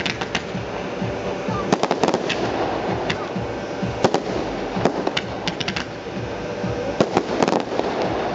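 Fireworks display: shells bursting in the sky with sharp bangs and crackling, several in quick clusters every second or two.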